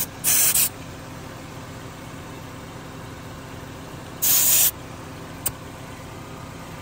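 Air hissing briefly out of a car tyre's valve stem as a digital tyre pressure gauge is pressed onto it: two short hisses, one near the start and one about four seconds in, followed by a small click.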